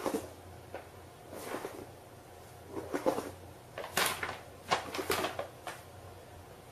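Paper bag rustling and scraping over a hard floor in short irregular bursts as a cat walks about inside it. The louder rustles come in the second half.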